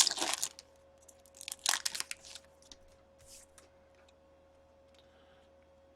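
A hockey card pack's wrapper being torn and crinkled open by hand, in bursts of rustling at the start and around two seconds in, then faint handling ticks as the cards come out.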